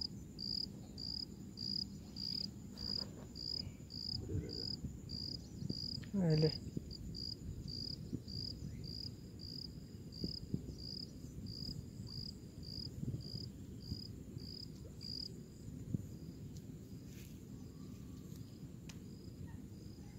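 An insect, most likely a cricket, chirping in a steady high-pitched rhythm of about two chirps a second, fading after about fifteen seconds. About six seconds in, one short pitched call stands out louder than the chirping.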